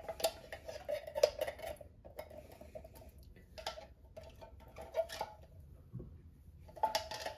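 Spatula scraping cream-style corn out of a tin can: a string of irregular scrapes and light metallic knocks against the can.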